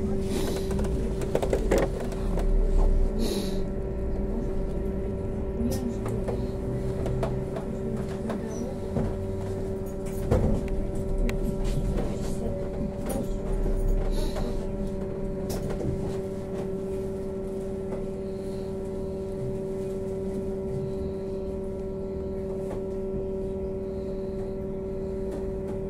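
Trolleybus interior: a steady electrical hum of several fixed tones over a low rumble, with scattered clicks and rattles. The rumble swells in the first few seconds and again around halfway.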